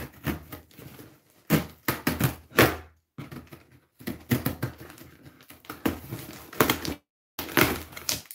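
Scissors blade pushed along the packing-tape seam of a cardboard box, slitting the tape open: scraping, ripping strokes in several spurts with brief pauses between.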